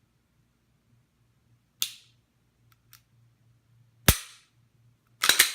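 Sharp metallic snaps and clicks of a Glock pistol's slide and striker parts being handled: a snap about two seconds in, two faint ticks, a loud snap about four seconds in, and a quick run of snaps near the end. A faint steady low hum sits underneath.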